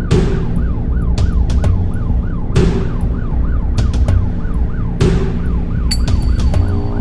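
Vehicle's own electronic siren on a fast yelp, its pitch rising and falling about three times a second, heard from inside the cab over engine and road rumble. A sharp burst of noise cuts in about every two and a half seconds.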